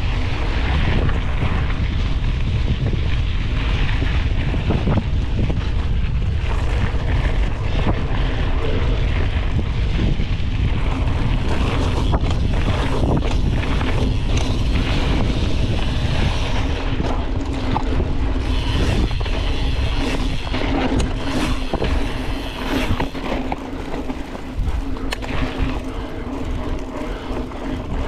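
Wind buffeting the microphone of a mountain bike being ridden at speed, with tyre noise and scattered knocks and rattles from the bike over the course. The rumble eases a little near the end.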